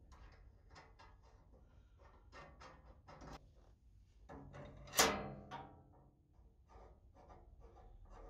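Steel parts of a Morso mitre guillotine's base linkage being handled and fitted by hand: light metal clicks and knocks throughout, with one loud ringing metal clank about five seconds in.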